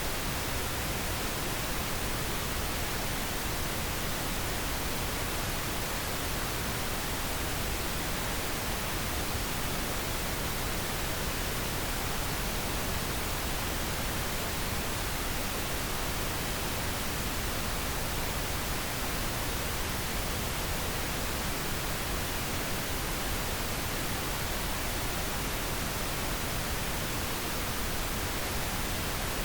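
Steady, unbroken pink noise: an even hiss that does not change.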